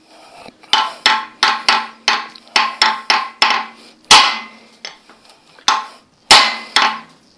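Hammer blows on a metal bar driven up under a seized piston in a Ford flathead V8 block, each strike a sharp ringing metal clank, to knock the piston crown loose. About three blows a second at first, then a few heavier, more spaced blows, the loudest about four and six seconds in.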